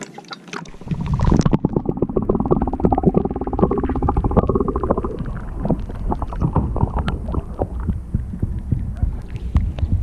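Loud low rumble of the camera being handled and jostled on a kayak, with many knocks and clunks, starting about a second in.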